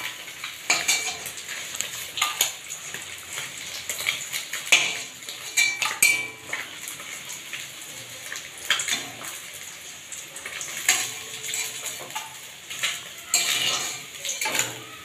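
Steel spatula clinking and scraping against a metal kadai while lifting fried rohu fish pieces out of the oil, in irregular strokes, the loudest about five and six seconds in.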